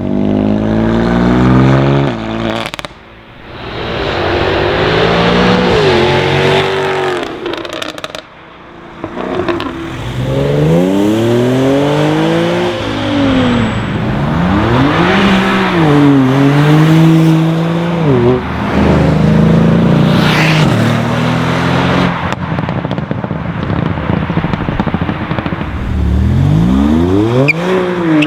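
Performance cars accelerating hard past one after another. Each engine's pitch climbs and then drops back at the gear changes, with a few sharp pops between passes.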